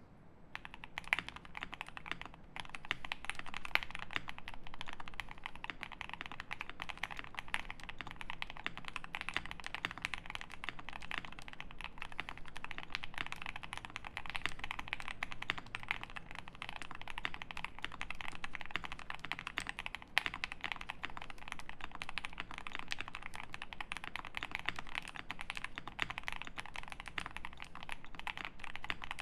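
Steady fast typing on a Jelly Epoch 75% mechanical keyboard with lubed Alpaca V2 linear switches, a polycarbonate plate and GMK keycaps. It is a dense stream of keystrokes with the odd louder stroke, starting about a second in.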